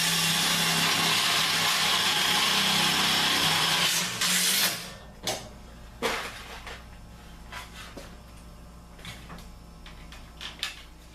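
Makita cordless impact driver running for about four seconds, driving a sheet-metal screw through two layers of furnace housing metal, which is why it goes slowly. A short second burst follows, then a few light clicks.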